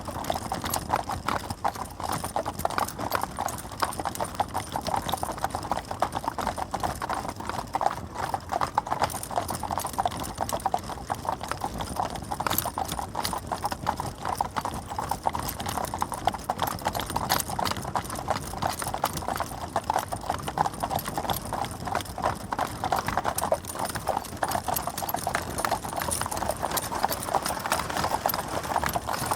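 Stagecoach drawn by a team of four horses travelling along, with continuous, busy clip-clop of hooves throughout.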